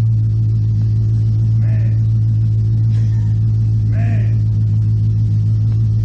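Car engine idling steadily with its mufflers cut off, giving a loud, deep open-exhaust drone.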